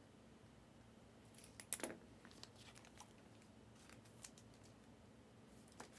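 Faint handling of trading cards and card packs on a tabletop: a cluster of light clicks and rustles about two seconds in, then a few scattered single clicks, over near-silent room tone.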